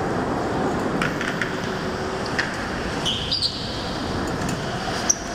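Go-kart running on an indoor concrete track: steady running and road noise with scattered knocks. Brief high tyre squeals come about three seconds in as it corners.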